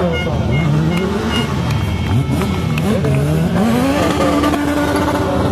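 Rallycross race cars on track: engine pitch drops and climbs several times as the cars work through the gears, then rises in one long climb under acceleration and holds high near the end, with more than one engine overlapping.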